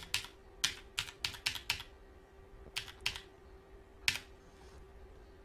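Computer keyboard keys pressed one at a time while typing a phone number: a quick run of clicks in the first two seconds, two more near three seconds and a last one about four seconds in, over a faint steady hum.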